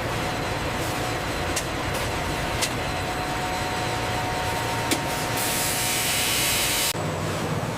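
Steady running noise of machinery with a low hum, a few sharp clicks, and a hiss about five and a half seconds in that lasts about a second and a half before the sound changes abruptly.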